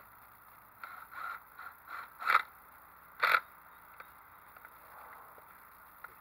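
Cordless drill driving a screw into the corner of an elevated dog bed's metal frame in short trigger bursts: a string of brief pulses, then two louder bursts about a second apart.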